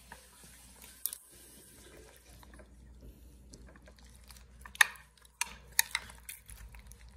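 A spoon stirring chopped strawberries into thick sour cream in a glass baking dish: wet, squelching mixing with several sharp clinks of the spoon against the glass, most of them in the second half.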